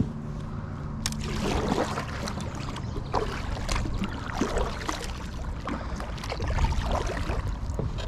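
Water splashing against a plastic kayak hull with small irregular knocks and clicks of gear being handled, over a steady low hum.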